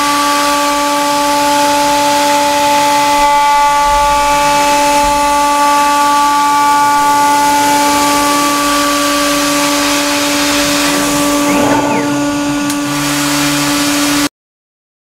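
CNC router spindle with a 6 mm single-flute end mill cutting 8 mm aluminium plate: a steady, loud whine with a row of overtones over a hiss of the air-blast coolant. It cuts off suddenly near the end.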